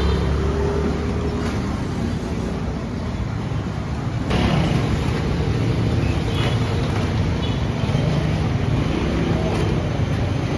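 Steady street traffic noise, the running of passing motorbikes and cars, growing louder about four seconds in.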